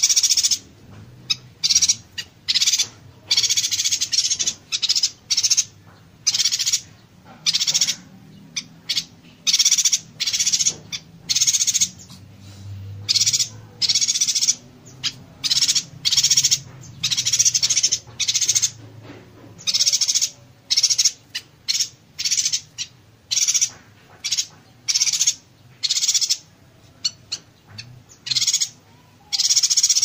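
Yuhina singing in its 'konslet' style: dense, buzzy, crackling bursts fired in close succession, each a fraction of a second to about a second long, with short gaps between them.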